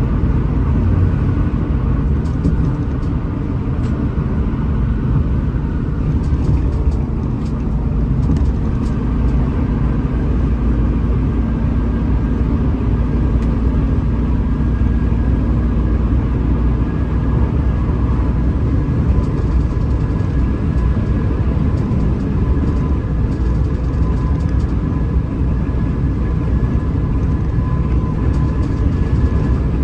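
Hino RM 280 bus running steadily at cruising speed: a constant low engine and road rumble with a faint steady whine above it.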